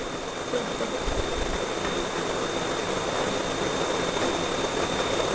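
Steady room background noise: an even hiss with a faint, high, steady whine.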